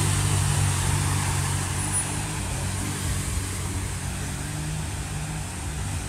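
Pickup truck engine running as it drives through flowing floodwater thick with hail slush, its low hum fading over the first few seconds, over a steady rushing noise of water.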